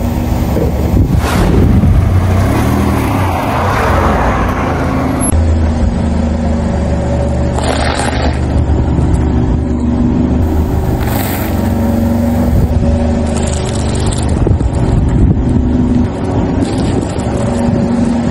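Car engine running at low speed as its tyres roll over and crush drink pouches and small objects on the road, with short crackling bursts about eight and eleven seconds in.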